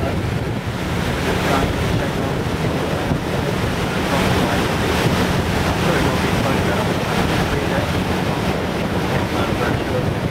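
Wind blowing across the microphone on a moving cruise boat, over the rush of water and a steady low hum.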